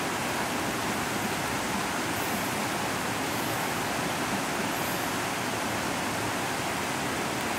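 Steady rushing of river water, an even hiss that does not change.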